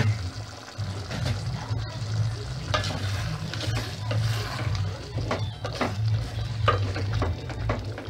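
A spoon stirring thick, simmering black bean and potato stew in a metal pot, with repeated scrapes and knocks against the pot from about three seconds in. A low steady hum runs underneath.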